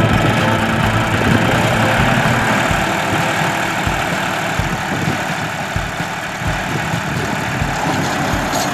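John Deere 5204 tractor's three-cylinder diesel engine running steadily under load as it drives a rotary tiller through the soil.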